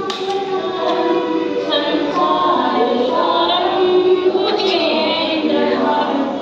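Several women's voices singing a devotional hymn together during a puja, overlapping and sustained.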